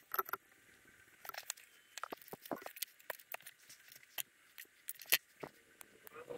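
Irregular small clicks, taps and light rattles of hand tools and wires being picked up and handled, including a wire stripper; the sharpest click comes about five seconds in.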